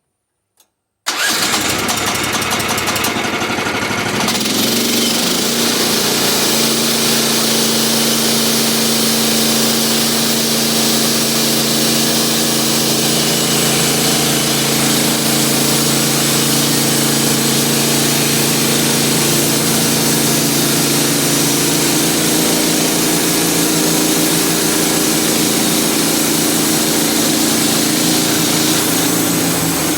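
A portable sawmill's engine starts up about a second in, changes pitch for a few seconds, then runs steadily.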